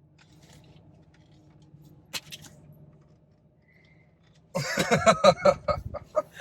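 Quiet steady low hum with a few light clicks, then about four and a half seconds in a person's voice breaks in loudly for the last two seconds.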